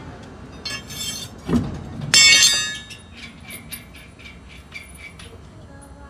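Light clinking and jingling of small hard objects, loudest in a ringing cluster about two seconds in, with a dull knock just before it and a run of lighter ticks afterwards.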